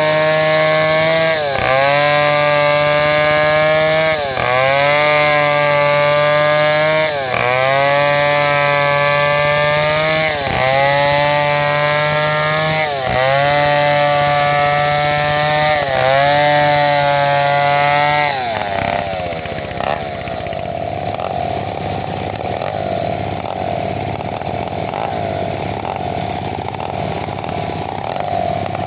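Two-stroke chainsaw ripping lengthwise along a sengon log, cutting under load: the engine note dips and recovers about every three seconds. About two-thirds of the way through it drops to a lower, quieter steady note.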